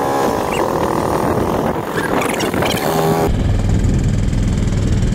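Mercury outboard motor pushing an inflatable dinghy along at steady speed, with wind noise over it. About three seconds in the sound changes abruptly to a lower, steadier engine hum.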